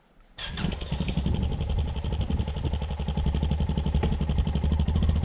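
Yamaha Ténéré motorcycle engine coming in suddenly about half a second in and running steadily with a fast, even firing pulse.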